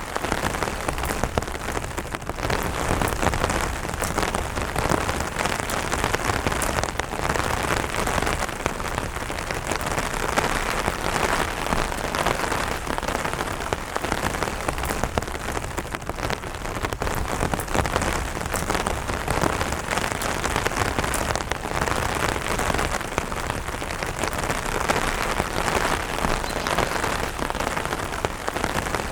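Rain falling steadily on an umbrella canopy, a dense, even patter of drops.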